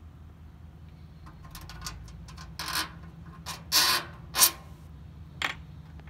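About five short scraping rubs, the loudest two about four seconds in, as metal grill parts and the phone are handled. A steady low hum runs underneath.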